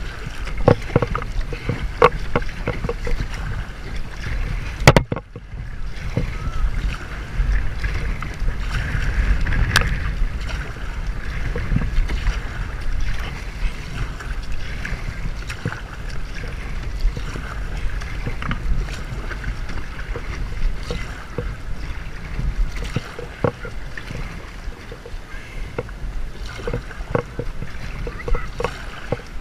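Paddling a plastic sit-on-top kayak on calm sea: paddle blades dipping and splashing, with irregular clicks and knocks of the paddle against the hull. A steady low rumble runs underneath, and the sharpest click comes about five seconds in.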